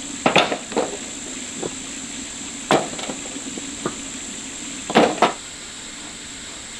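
Irregular knocks and blows on timber, about eight in all, the loudest pair about five seconds in. A steady high insect drone runs behind them.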